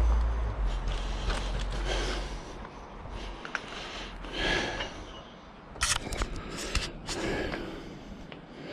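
A cyclist breathing hard after exertion: deep breaths about every two and a half seconds. A low rumble fades away over the first couple of seconds, and a few sharp clicks come about six to seven seconds in.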